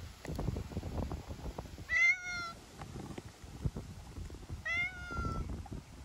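Stray domestic cat meowing twice, two short calls about three seconds apart, each ending on a slight downward bend. Under them, strong wind buffets the microphone with an uneven low rumble.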